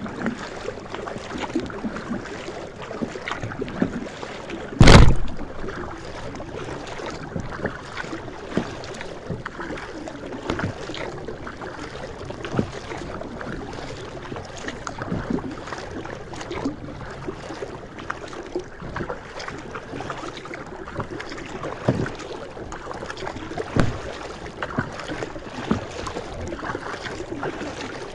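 Kayak gliding on calm lake water: irregular paddle splashes and drips over the steady wash of water along the hull. A single loud thump about five seconds in.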